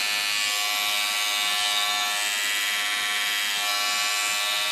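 Wahl 5 Star Detailer corded hair trimmer running, a steady high-pitched buzz with no change in pitch. Fairly quiet for its power: "not too noisy".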